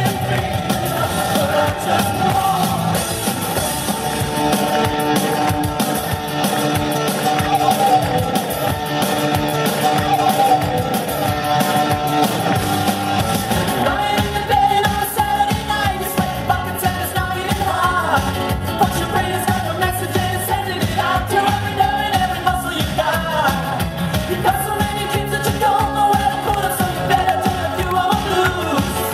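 Up-tempo song with a singer and a steady beat, played loud over stage PA speakers for an acrobatic rock-and-roll dance routine.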